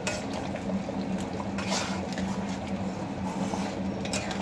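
Thick lentil dal in a kadai being stirred with a ladle while it simmers: soft wet sloshing and bubbling over a steady low hum.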